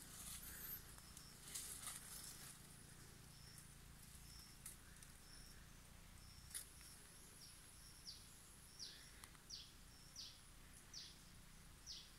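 Quiet forest ambience with a bird calling faintly: a string of short high notes repeated about every half second, then in the second half several quick chirps falling in pitch. A few faint snaps of brush sound now and then.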